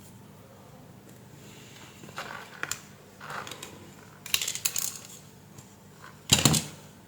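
Light clicks and rattles of small hard parts and tools being handled while a power bank is taken apart, with a louder clack about six seconds in.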